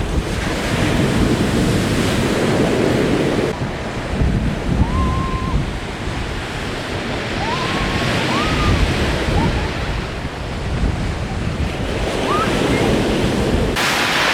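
Sea waves washing and breaking, with strong wind buffeting the microphone, and a few short high cries about five, eight and twelve seconds in.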